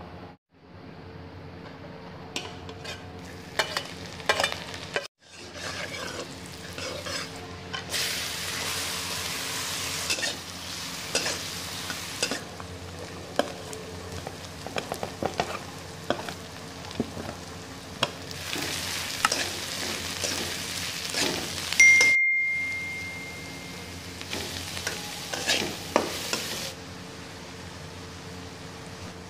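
Chopped onion, green capsicum and carrot stir-frying in oil in a wok: a spatula scrapes and clicks against the pan, with stretches of sizzling over a low steady hum. About three quarters of the way in, a utensil strikes the pan once with a loud metallic ring that fades away.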